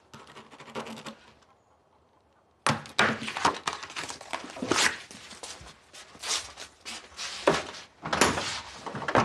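A paper greetings card being handled with a soft rustle, then torn up: from about two and a half seconds in, loud repeated ripping and crumpling of card, with knocks.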